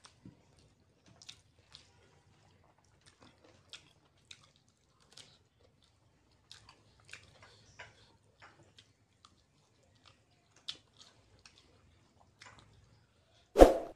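Close-up chewing and biting of fried chicken lollipop, with scattered quiet wet clicks and smacks of mouth and fingers. Near the end a single loud, short sudden sound.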